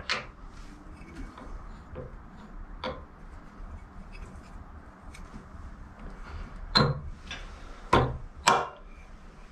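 Bull gear of a Bridgeport milling machine head being turned and worked down onto its keyed shaft by hand, metal parts clinking and knocking against each other a handful of times, with three louder knocks in the last few seconds.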